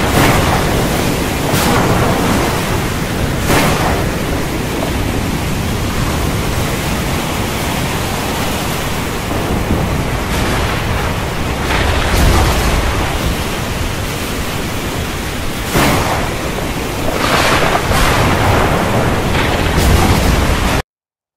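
Storm sound effect: a loud, steady rush of wind-and-surf noise with deep rumbles and stronger surges every few seconds. It cuts off abruptly near the end.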